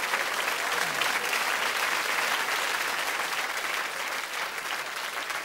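Studio audience applauding, a steady wash of clapping that eases slightly near the end.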